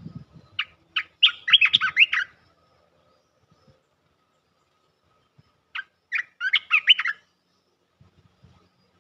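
Olive-winged bulbul calling: a burst of quick, chirping notes starting about half a second in, then a second shorter burst about six seconds in.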